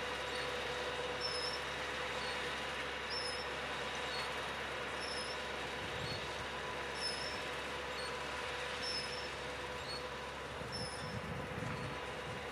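Tractor working a field, a steady engine drone with a constant hum. A short high chirp repeats about every two seconds throughout.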